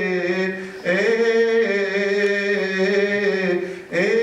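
A solo man's voice chanting the Gospel in Coptic liturgical style. Each syllable is stretched into a long melisma of held notes that turn slowly up and down, here between the words "alive" and "again". There are two short breaths, about a second in and near the end.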